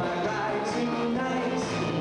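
Two acoustic guitars strummed together, with a man's voice singing a song over them.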